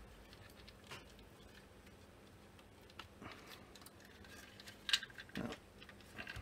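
Plastic housing of a Siemens S7-300 PLC CPU being worked apart by hand: a few light scattered clicks and rubs as the case halves are pushed to slide, the sharpest click about five seconds in.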